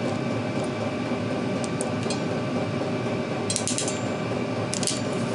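Ratchet ferrule crimping tool clicking as it is squeezed onto a bootlace ferrule on a wire: a few single clicks, then a quick run of clicks about three and a half seconds in and another near the end. A steady fan-like hum runs underneath.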